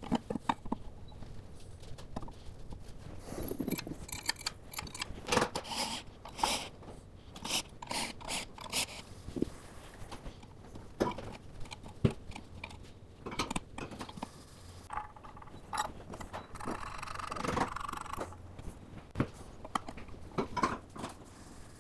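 Metal parts and hand tools being handled as a clutch and flywheel are seated on a motor's adapter plate: irregular clicks, light knocks and scrapes, with a longer scraping stretch about seventeen seconds in.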